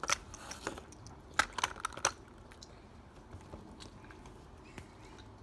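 Clicks and taps of a small die-cast toy truck and its cardboard box being handled and set down on a wooden table, in two short clusters in the first two seconds, then only a few faint ticks.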